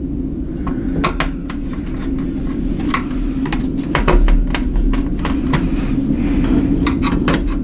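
Scattered small clicks and taps of screws being loosened on a mining-rig case's card boards, over a steady low hum.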